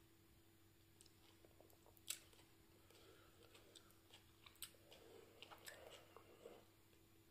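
Faint chewing and wet mouth clicks of someone eating a hot pepper, with one sharper click about two seconds in and a run of soft chewing sounds between about five and six and a half seconds, over a steady faint hum.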